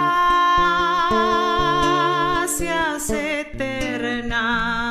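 A woman singing in Spanish, accompanied on acoustic guitar: she holds a long note with vibrato, then begins a new line about three seconds in, over plucked steel-string acoustic guitar.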